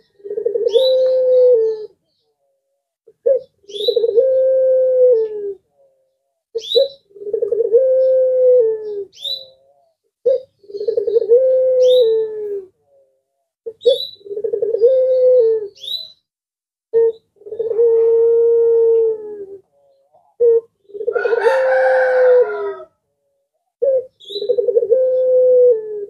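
A puter pelung, a domestic ringneck dove, cooing over and over. There are eight calls about three and a half seconds apart, each a short opening note followed by a long, drawn-out low coo. The call about 21 seconds in is louder and rougher. Short high chirps come at the start of several calls.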